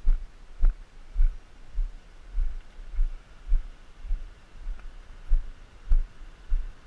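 Footsteps on rock, picked up through a body-worn camera as a regular low thud about every 0.6 s, at walking pace.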